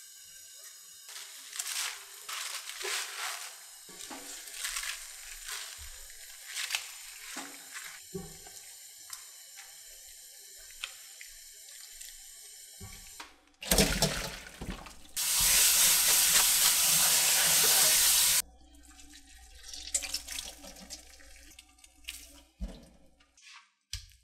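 Salted water boiling in a frying pan, stirred with a metal ladle, then spinach blanching in it and turned with tongs, with scattered clinks and splashes. About fourteen seconds in there is a splash, then a tap runs loudly for about three seconds and stops abruptly.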